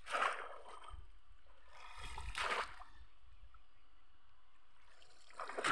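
Shallow, muddy pond water sloshing three times, about two and a half seconds apart, as a cone-shaped net fish trap is plunged down into it.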